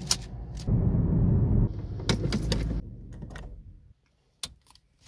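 A car seat belt being drawn out and buckled: the webbing slides with a low rustle, and the metal latch plate gives a series of sharp clicks as it is fed into the buckle.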